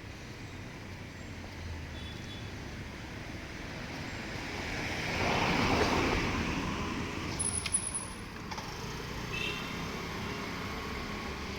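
A road vehicle driving past, its noise building to its loudest about six seconds in and then fading away, over steady traffic noise.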